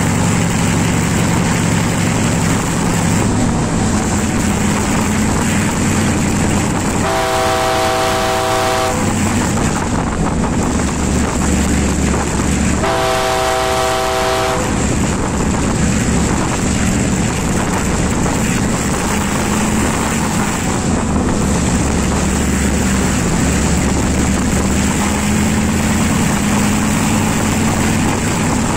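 A Class M2c diesel locomotive hauling a passenger train at speed, with a steady engine drone and wheel-on-rail noise. Its chord horn sounds twice, each blast about two seconds long, about seven and thirteen seconds in.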